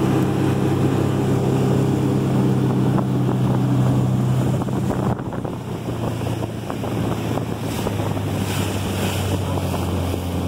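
Tow boat's engine running steadily, with the wake churning behind the boat and wind buffeting the microphone. A little past halfway the engine note drops lower as the throttle is eased off.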